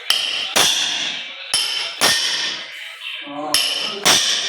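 A hammer striking hard, six blows in three pairs about half a second apart, each blow leaving a short ringing tail.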